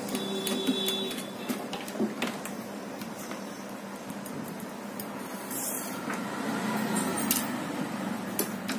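Scattered light clicks and clinks of small parts being handled as a TV power supply board is fitted back into place, over a steady low hum.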